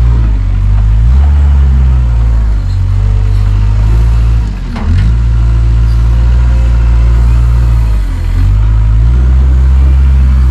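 Large tractor diesel engine running steadily close by. Its speed dips briefly and recovers about halfway through and again about three-quarters in.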